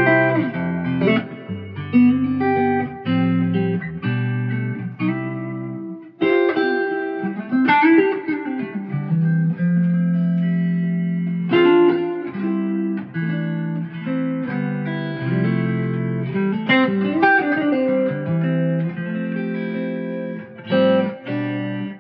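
Fender electric guitar played through a JK Amplifiers Oxygen 1 valve preamp, picking chords and melodic lines with many notes left ringing.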